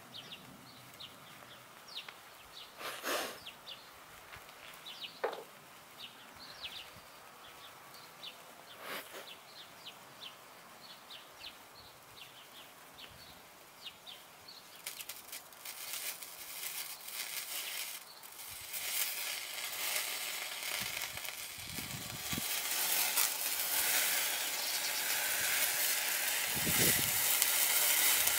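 A magnesium and strontium chloride hexahydrate thermite-type mix catching and burning with a hiss. The hiss starts about halfway through and grows louder to the end, with a couple of low thuds near the end. Before it, only faint outdoor background with scattered short ticks.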